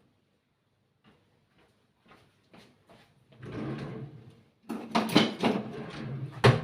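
Kitchen handling noises. A few light clicks come first, then a short sliding sound like a drawer or cupboard opening, then loud clattering of kitchen items, ending in one sharp knock.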